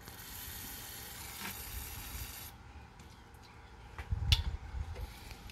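Aerosol cleaner spraying in a steady hiss for about two and a half seconds, then cutting off: a blast to clear aluminum shavings from a freshly drilled and tapped bolt hole in an intake manifold. A few sharp clicks and low knocks follow about four seconds in.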